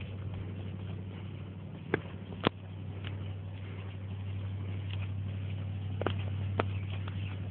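A steady low engine hum, with a few sharp clicks or knocks on top, twice close together about two seconds in and twice more about six seconds in.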